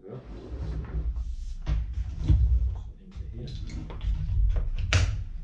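Scuba BCD being handled on a wooden table: nylon webbing and padded fabric rustling and bumping as straps and plastic buckles are worked, with a run of sharp plastic clicks in the last couple of seconds, the loudest about five seconds in.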